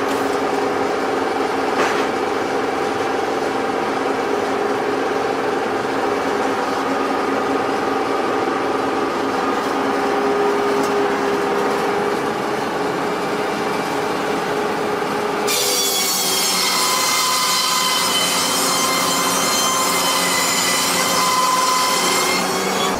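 Powered sawmill saw cutting through wood: a steady machine hum with a rasping cut. About two-thirds of the way through, the sound changes abruptly to a high, ringing whine.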